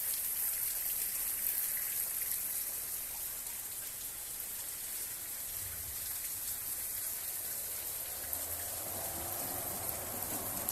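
Steady rain falling in a thunderstorm, an even hiss of drops.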